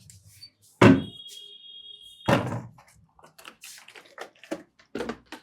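A few sharp thuds, the loudest about a second in, with a high steady tone lasting about a second after it.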